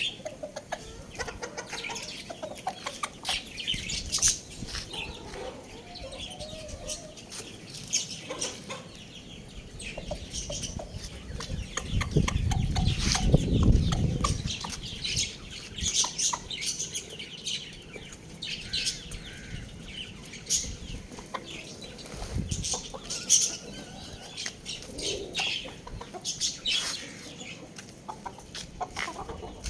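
Young chickens clucking and giving short high calls, with scattered clicks and rustles of pecking and flapping wings. A louder low rumble lasts about two seconds near the middle.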